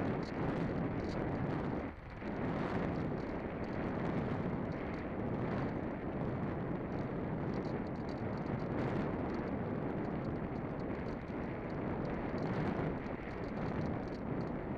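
Steady wind buffeting the microphone: an even rushing noise that briefly dips about two seconds in.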